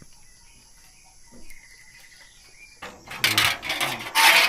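Steady high-pitched drone of insects with a few faint bird chirps. About three seconds in, it gives way to loud clattering and scraping of a corrugated metal sheet being handled, loudest near the end.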